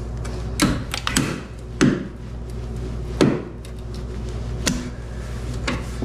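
Irregular clicks and knocks, about seven in six seconds, of a small hand tool working at a pickup truck's plastic tail light housing and its plastic plugs, over a steady low hum.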